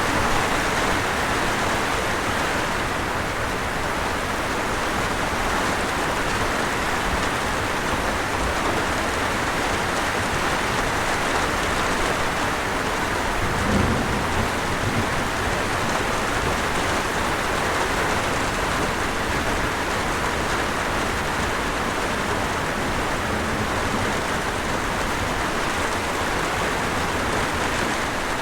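Steady rain mixed with the rush of a waterfall, an even hiss throughout. A single brief low thump about halfway through.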